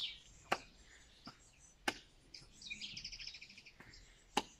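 Single hand claps, sharp and spaced a second or more apart, made as the hands clap in front of and behind the body. A bird chirps in a quick, high trill midway through.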